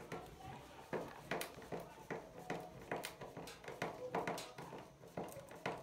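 Claw hammer lightly tapping a small nail through a plastic fitting into the wooden sewing-machine table top: a string of sharp, irregular taps, about two or three a second.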